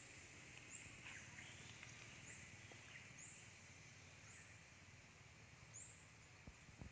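Near-silent outdoor ambience with a faint, short high-pitched chirp repeating roughly once a second.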